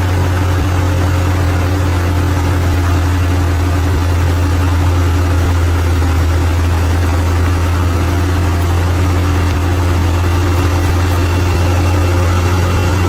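Bulldozer's diesel engine running steadily, a constant low drone with no change in pitch or load.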